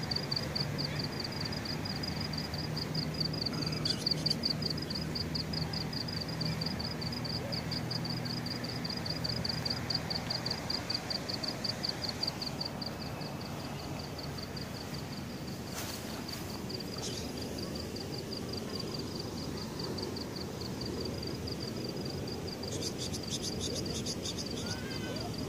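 Insects chirping in a fast, even, high-pitched pulse that never stops. A low steady hum runs under the first half, and a short buzzy trill comes in near the end.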